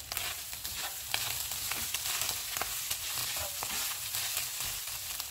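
Beef keema sizzling in a nonstick wok as a spatula stirs chopped coriander through it, with frequent short scraping taps of the spatula against the pan over a steady frying hiss.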